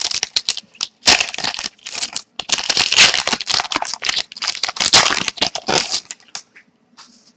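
Foil wrapper of a Zenith hockey card pack being torn open and crinkled while the cards are handled, a dense run of rustling and crackling that thins out about six seconds in.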